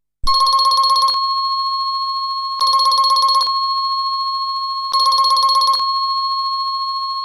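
Hinix HN0804E doorbell music chip playing its electronic telephone-ring tone: three short trilling rings about every two and a half seconds, with a steady electronic tone held between them.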